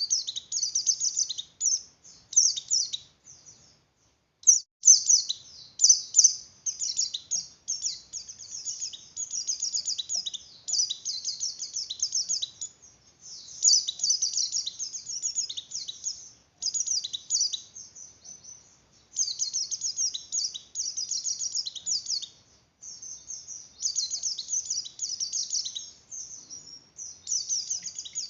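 A white-eye (pleci) in breeding condition twittering in fast, high, excited phrases of one to three seconds, separated by short gaps, with a longer pause about four seconds in. It is the 'oper birahi' song, described as a female calling a male.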